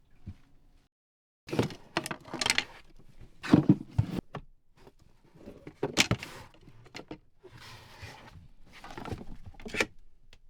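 Irregular rustling and clinking handling noises with several sharp knocks, loudest a little after three seconds in and again around six seconds.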